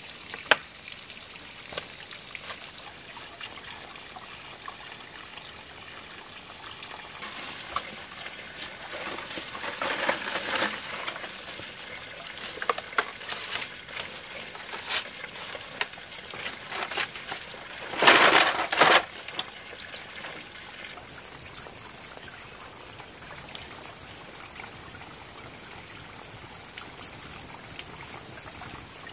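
Water trickling and pouring steadily, with scattered light knocks and a louder splashing burst about eighteen seconds in.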